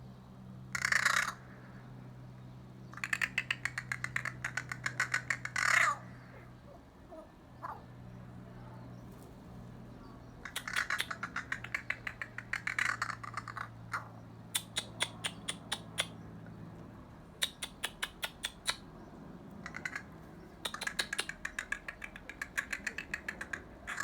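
Crows giving runs of rapid clicking rattle calls, each run lasting a few seconds, with a few short caws in between.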